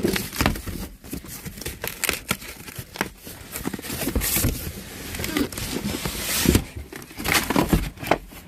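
Corrugated cardboard boxes being torn open and handled: irregular ripping, rustling and knocks, with a few longer tearing sweeps.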